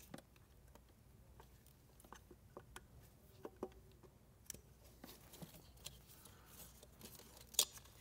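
Faint, scattered small clicks and scrapes of a flathead screwdriver working the release clip of the fuel line connection at the back of a fuel rail, with a sharper click near the end.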